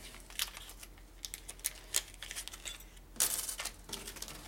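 Light clicks and taps of small metal engine parts, pistons and wrist pins for a Harley Evolution rebuild, being picked up and handled on a steel workbench, with one longer, louder handling noise about three seconds in.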